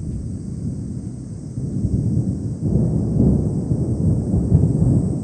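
Thunder rumbling, a low rolling rumble that swells about two and a half seconds in and stays strong.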